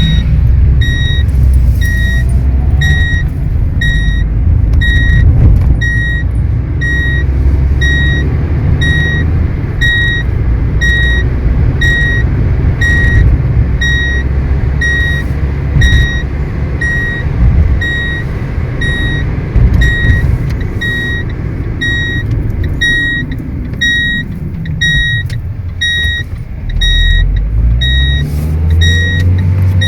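Car seat belt warning chime beeping steadily in short, evenly spaced tones, the alarm for an unfastened belt while the car is moving. Underneath, the car's engine and road noise rumble, and the engine revs up near the end.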